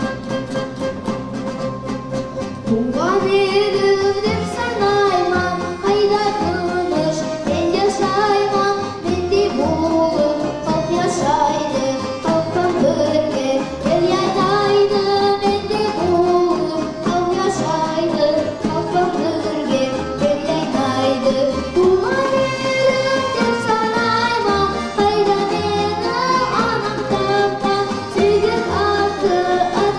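A boy singing a folk song, accompanied by an ensemble of plucked folk string instruments. The instruments play alone at first; about three seconds in the voice enters with an upward slide and carries the melody in phrases.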